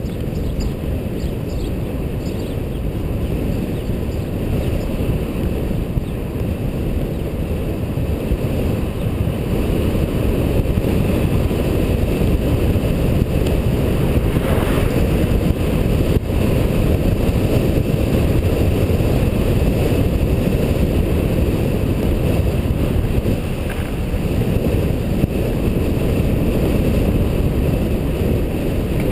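Steady low wind rumble buffeting a GoPro HD Hero's microphone while riding along a road, growing a little louder about a third of the way in.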